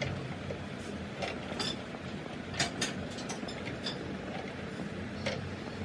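Short metallic clicks and clinks at irregular spacing as a wrench is worked on a steering rack end clamped in a steel vise, over a steady low hum.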